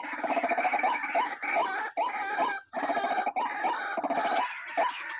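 White-breasted waterhen calls: long runs of rapid, harsh croaking notes with short breaks, thinning to separate single notes near the end.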